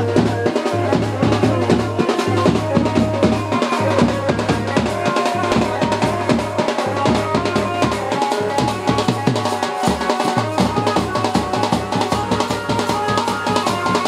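Wedding band drums playing a fast, dense, steady beat, with a repeating low bass note underneath.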